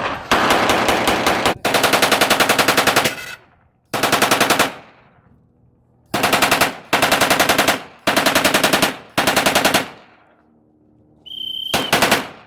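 Blank-firing machine guns in a battle reenactment, shooting about eight bursts at roughly nine to ten shots a second, some over a second long and some under a second. The bursts are separated by short pauses, and each trails off in an echo. A brief high steady tone sounds near the end.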